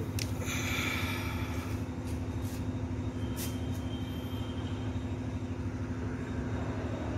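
A steady low mechanical hum holding one constant tone, with a few faint clicks.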